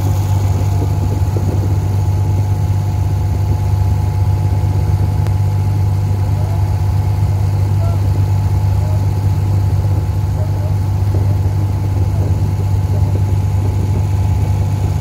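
A small passenger boat's engine running at a steady speed, heard from on board as a constant deep hum.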